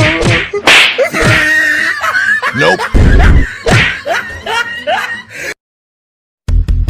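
Slap and smack sounds of a staged scuffle, mixed with voices crying out, and a heavy thump about three seconds in. The sound drops out briefly, and electronic music with a steady beat starts near the end.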